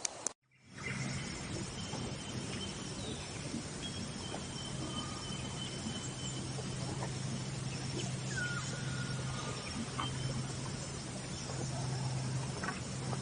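Outdoor ambience: steady background noise with a low hum and a few faint, thin high whistling calls, one held for a couple of seconds and a short falling note later on.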